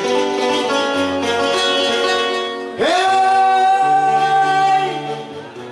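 Acoustic guitars playing a Panamanian décima accompaniment in the llanto style. About three seconds in, a man starts singing with one long held note over the guitars, which fades near the end.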